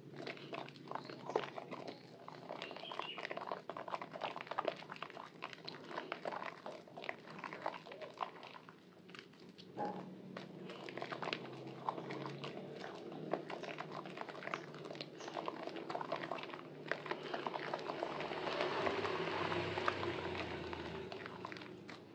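Soaked white Purbasari bar soap squelching and crackling as hands knead and squeeze it into thick lather in a basin of soapy water, with many small wet pops and squishes. The squishing grows denser and louder near the end.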